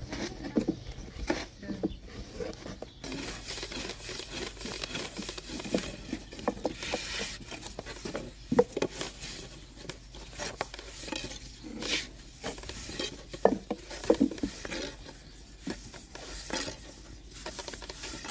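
A long thin wooden rolling pin rolling and knocking against a round wooden board as flatbread dough is rolled out thin, with irregular taps and a few sharper clacks.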